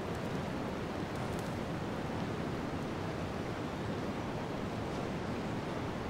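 Steady winter wind ambience: an even rushing noise, heaviest in the low end, with a few faint soft rustles about a second in.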